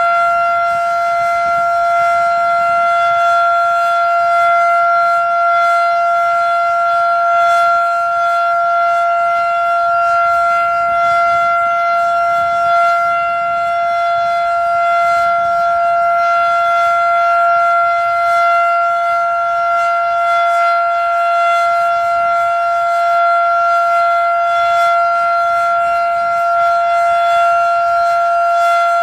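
Federal Sign and Signal Model 7 outdoor warning siren sounding a Full Alert: one steady, unwavering pitch held without rising or falling.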